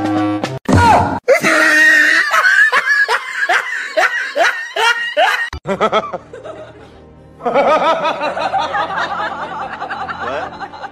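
A person laughing in a quick run of 'ha's, two or three a second, over background music; after a short lull about halfway through, more laughter and music.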